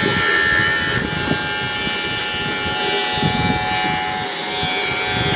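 Electric shaver buzzing steadily as it shaves off a man's beard.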